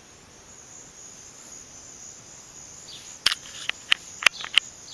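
Crickets chirring steadily in a high, even band outside, with a quick run of about five sharp clicks about three seconds in.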